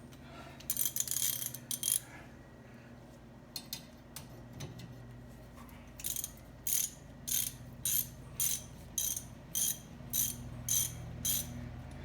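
Socket ratchet wrench clicking as it is worked on a brake caliper bolt: a brief flurry of clicks near the start, then regular short strokes about two a second through the second half.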